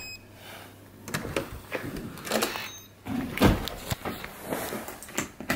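Electronic keycard door lock giving a short beep as the card is read, followed by the clicks and clunks of the latch and door being opened and pushed shut, with a heavy thump about three and a half seconds in.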